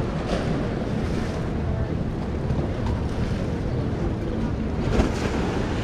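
Wind buffeting the microphone, a steady low rumble, with one sharp knock about five seconds in.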